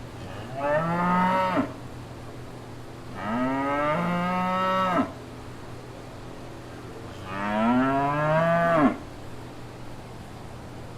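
Cow mooing three times, each moo long and rising in pitch before breaking off, with a few seconds between them.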